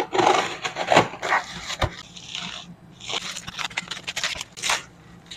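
Box cutter scraping and slicing through the tape and cardboard of a parcel, with sharp clicks, then the crinkling rustle of plastic bubble wrap being handled.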